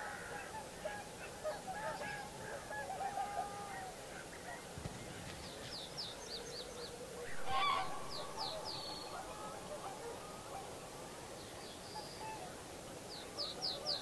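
Common cranes and other wetland birds calling: a steady run of mid-pitched calls, with one louder call about seven and a half seconds in. A small bird repeats quick, high descending notes several times.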